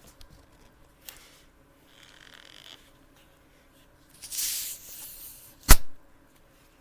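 Handling noises: a few faint clicks and rustles, then a breathy hiss, then a single sharp, loud knock near the end.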